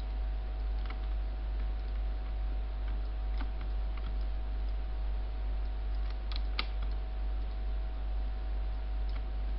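Steady low electrical hum with a faint steady whine, and a handful of sharp, widely spaced computer clicks, two close together just past the middle.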